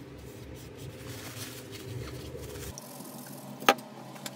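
A cloth rubbing over the copper contact plate of an MSI RTX 3070 Ventus 2X heatsink, wiping off old thermal paste. Then one sharp knock, about three and a half seconds in.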